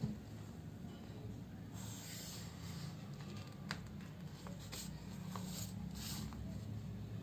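Pen drawing on paper: a few short scratchy strokes, with a brief tap as the plastic ruler is set down, over a faint steady low hum.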